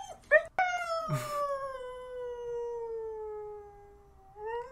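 Husky howling as a greeting to its owner coming home: two short yips, then one long howl that slides slowly down in pitch for about three and a half seconds, and a new howl rising near the end.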